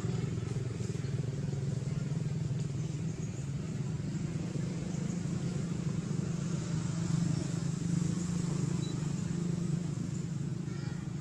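Steady low drone of an engine running, unchanging throughout.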